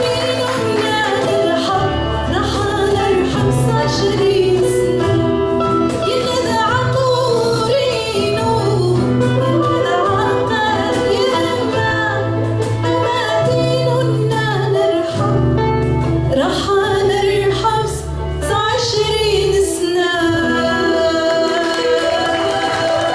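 Live Amazigh (Tamazight-language) song: a woman sings the melody over a small band of acoustic guitar, electric guitar, keyboard and cajón, with a steady bass line and beat.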